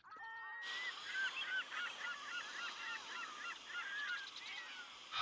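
A flock of geese honking: many short, overlapping calls, fairly faint, starting about a second in.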